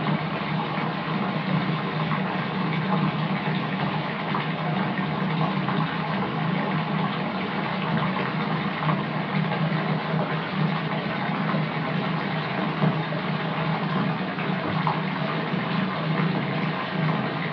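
Water running from a tap into a bathtub as it fills: a steady rush with a deep rumble underneath.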